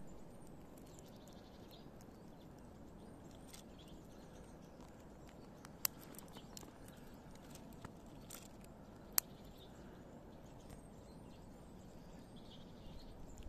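Squirrel gnawing and cracking nuts: scattered small clicks, with two sharper cracks about six and nine seconds in, over a faint steady background hiss.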